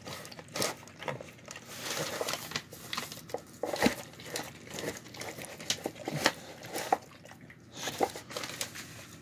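A dog eating from its bowl on a newspaper: irregular licking and chewing noises mixed with the newspaper crinkling under its muzzle and paws.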